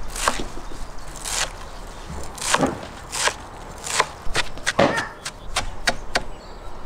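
Chef's knife chopping fresh leafy herbs on a wooden cutting board: about a dozen irregular knocks of the blade against the board, a few of them heavier.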